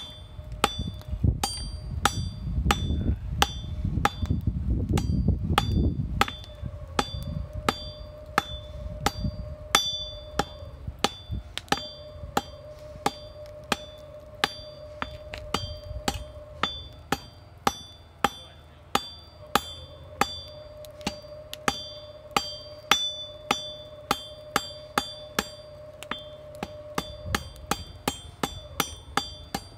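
Blacksmith's hand hammer striking hot steel on an anvil at a steady pace of about two blows a second, each blow with a bright metallic ring, drawing out a taper on a forge-welded bar to make a fire poker.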